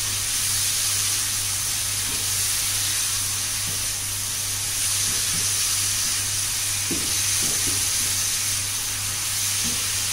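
Sauce-coated chicken pieces sizzling steadily in a frying pan as a silicone spatula stirs them. There are a few short knocks of the spatula against the pan about seven seconds in and again near the end.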